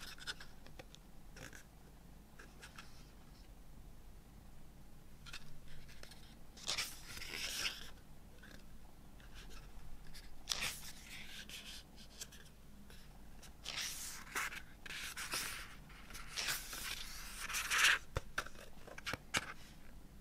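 Pages of a hardcover booklet being turned and smoothed by hand: several papery swishes and rubs a few seconds apart, with small clicks of paper between them, the longest and loudest near the end.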